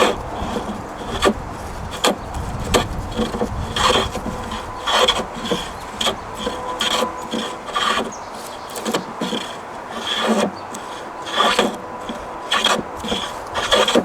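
Restored vintage Diamond Edge hand plane shaving wood in a series of short, quick passes, roughly one stroke a second, each a brief scraping swish as the blade takes off flakes.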